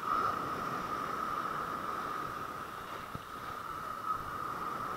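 Small waves breaking and washing over a rocky shore: a steady rush of surf, with a steady high-pitched tone running underneath it.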